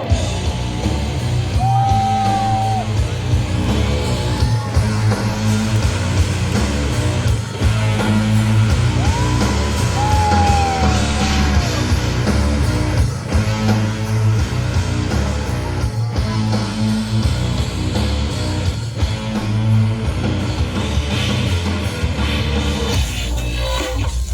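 Loud rock music with a steady heavy beat and a lead line of long held notes that bend in pitch, the backing track of a fire show.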